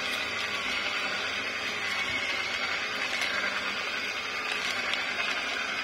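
Vertical slow juicer running steadily, its auger pressing carrots into pulp and juice.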